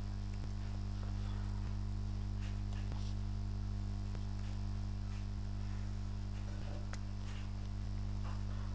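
Steady electrical mains hum with its overtones, the background hum of the recording setup, with faint, evenly spaced ticks a little over once a second.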